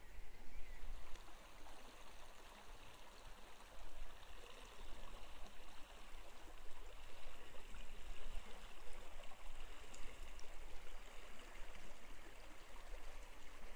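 River Welland flowing steadily past the bridge arches, a continuous rush of running water with a low rumble underneath.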